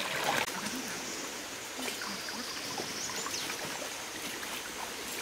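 Shallow forest stream running and trickling steadily.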